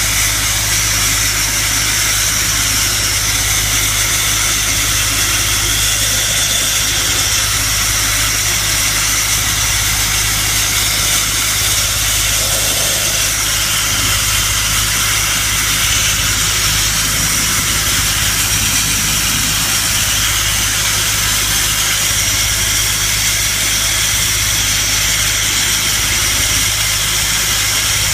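Sandblasting nozzle blasting abrasive against a car door's sheet metal, stripping the paint to bare metal: a loud, steady hiss that does not let up, over a low, steady engine hum.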